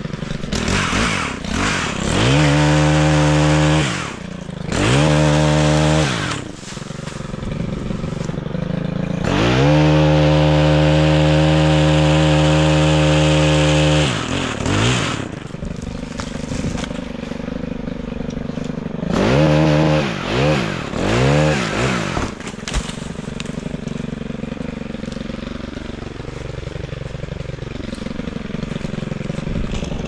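Chainsaw revving to full throttle and dropping back to idle several times: two short runs in the first few seconds, a longer run of about five seconds, then three quick blips just past the middle, idling in between.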